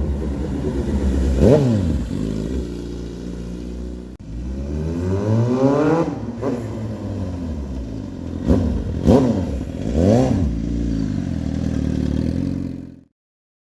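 Suzuki GSX-R750 K8 inline-four engine running and being revved. There is a longer climb in revs about five seconds in, and several quick throttle blips near the end, falling back to a steady idle. It cuts off suddenly.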